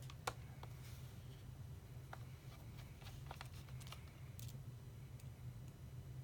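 Faint, scattered small clicks and taps of tiny screws and a screwdriver being handled against a MacBook Pro's aluminium frame, over a steady low hum.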